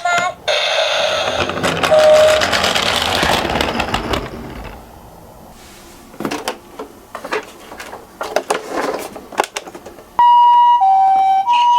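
Toy cars rattling as they roll down a plastic slope, then a few scattered clicks. Near the end a Japanese-style ambulance two-tone siren starts, alternating between a high and a low note (pee-po).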